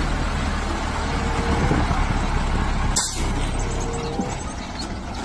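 DAF 45 livestock truck's diesel engine running steadily, with a short sharp click about three seconds in.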